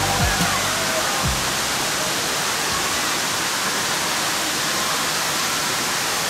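Waterfall rushing in a steady, even roar. Music with low bass notes dies away in the first second or so.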